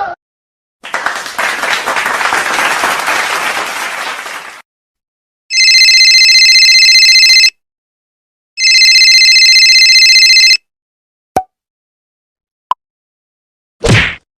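A run of separate sound effects: a few seconds of applause that fades out, then a telephone ringing twice, two-second rings a second apart, followed by two short clicks and a brief hit near the end.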